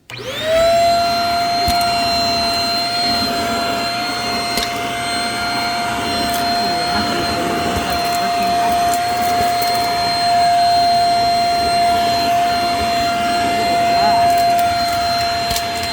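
Small new Rocket vacuum cleaner switched on for its first run: its motor whines up to speed within half a second, then runs steadily with a high whine over a rush of air, with a few faint clicks.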